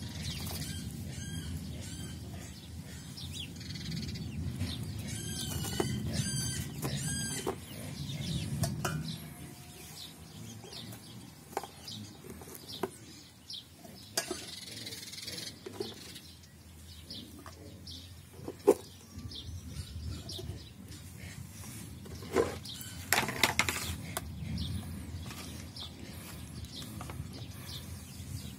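Food and plastic tongs knocking against a stainless-steel dog bowl as fried bread pieces are put in: several sharp knocks, the loudest past the middle. A bird chirps about five times in quick succession about five seconds in.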